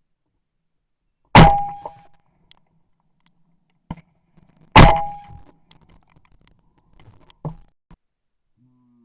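Two shotgun shots from a Blaser F16 over-and-under, about three and a half seconds apart, heard very close from a camera mounted on the gun, each with a short ringing decay. A fainter click comes between them, and a sharper one about two and a half seconds after the second shot.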